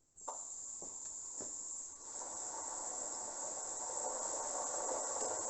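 Water rushing through a hose pipe into a waterbed mattress as it fills: a steady hissing rush that starts just after the start, with a few light knocks in the first second and a half.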